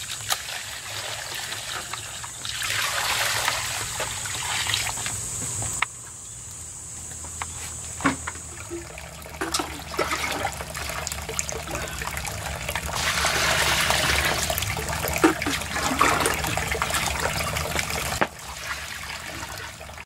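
Water poured from a bucket over a woven salt-filter basket, splashing and trickling through into a stone basin below as brine. There are two longer spells of pouring, one early and one in the second half.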